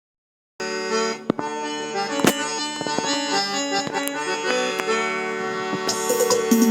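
Forró music led by accordion chords, starting about half a second in. A shaker joins near the end.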